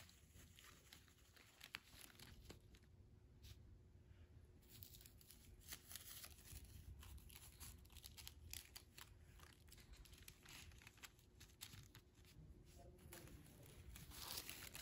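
Faint rustling and crinkling of green paper squares being handled, with scattered small clicks and taps.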